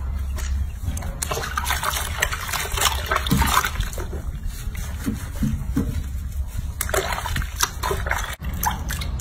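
Soapy water sloshing and splashing in a filled sink as hands scrub a baby monkey in it, in irregular bursts with a busier stretch around the middle.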